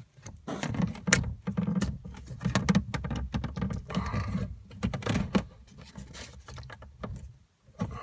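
Handling noise close to the microphone: irregular clicks, knocks and rustling as PEX tubing is worked into a push-fit plumbing fitting.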